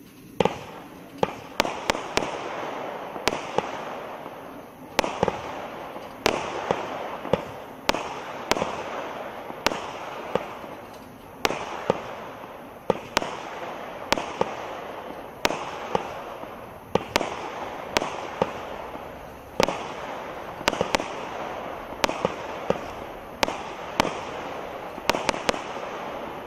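Small 25-shot consumer firework cake (Category 2, 20 mm tubes) firing shot after shot, about one sharp bang a second, with a steady hiss between the bangs.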